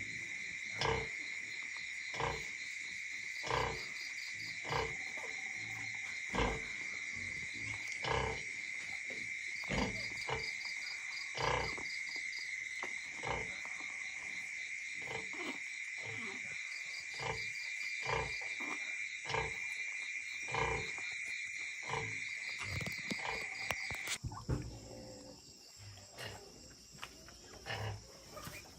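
Pigs grunting in short, repeated grunts a little faster than one a second, over a steady high-pitched insect drone that cuts off suddenly about 24 seconds in.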